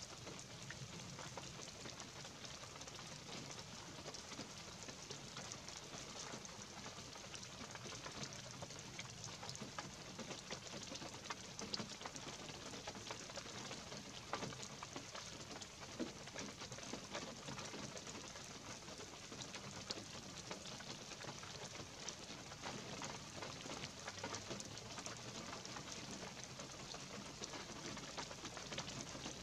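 Light rain falling on pine woods: a steady soft hiss of drizzle with countless small drop ticks, and now and then a louder single drip.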